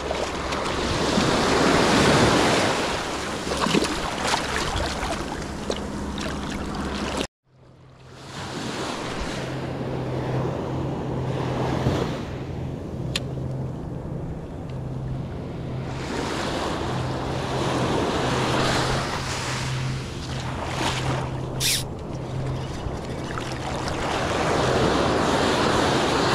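Ocean surf breaking and washing up the beach in slow swells, with wind on the microphone. The sound drops out briefly about seven seconds in; after that a steady low hum runs under the surf.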